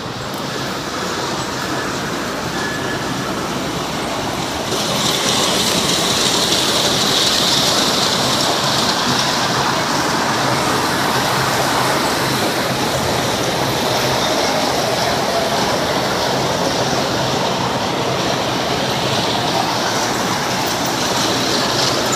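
Model trains running on a holiday display layout: a steady rolling whir and clatter of wheels on track. It grows louder and brighter about five seconds in.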